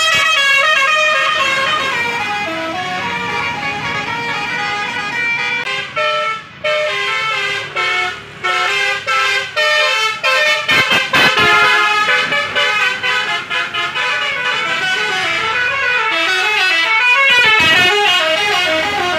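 Tour buses' multi-tone "basuri" melodic horns playing tunes, the notes stepping quickly up and down, with brief breaks between phrases.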